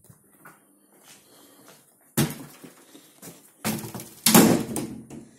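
A few knocks and bangs, like a door or cupboard being opened and shut, with the loudest clatter about four seconds in.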